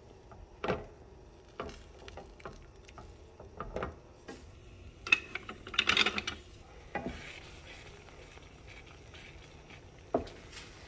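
A masher pressing and scraping canned beans in a stainless steel skillet, with soft knocks against the pan and a low sizzle as the beans heat. About six seconds in, wooden utensils clatter as a wooden spoon is pulled from a crock, and near the end the spoon knocks once on the pan.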